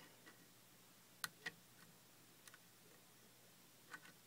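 Faint, scattered clicks of a lock pick working the pins of a six-pin pin-tumbler lock held under a tension wrench, about five separate ticks with the sharpest a little over a second in.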